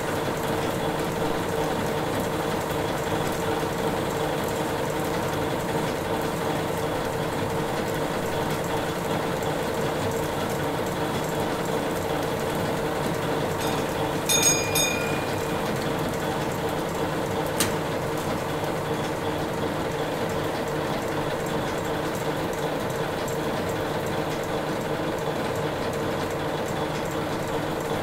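Steam engine running steadily: a continuous mechanical clatter of its rods and valve gear over a steady hum. About halfway through comes a short burst of sharp metallic clicks, and a single click a few seconds after it.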